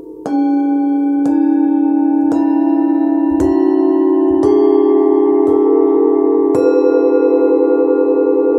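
A set of seven forged Tibetan singing bowls, tuned to a one-octave sharp series from about 281 Hz (C#) upward, struck one after another with a mallet about a second apart, each a step higher than the last. Every bowl keeps ringing, so the tones pile up into a sustained chord.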